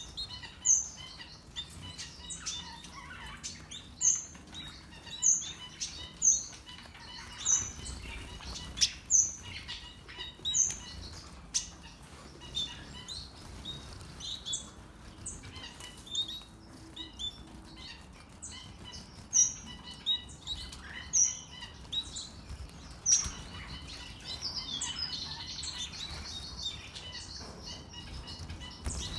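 Small aviary finches calling: a loud, sharp, high chirp that drops in pitch, repeated about once a second and then more sparsely, over soft continuous chattering and the flutter of wings. The calling grows busier near the end.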